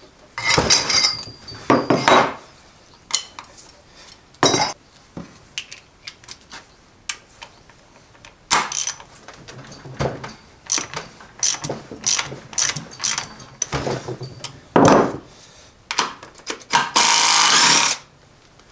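Hand tools and metal parts being handled on a workbench while taking apart a transfer case: a string of sharp clicks and knocks, with a few longer noisy stretches, the loudest lasting about a second near the end.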